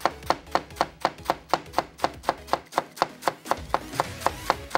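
Chef's knife chopping cabbage into fine chiffonade shreds on a plastic cutting board: a quick, even rhythm of about four to five knife strikes a second.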